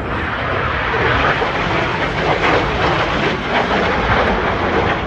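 BAE Hawk T1 jet flying past, its Rolls-Royce Turbomeca Adour turbofan making a loud, steady jet noise.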